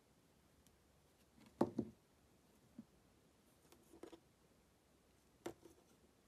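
Small hard plastic clicks and taps from handling and fitting the parts of a 1/144 plastic Gundam model kit, quiet and sparse: a pair of louder clacks about a second and a half in, a few lighter taps around the middle, and a sharp click near the end.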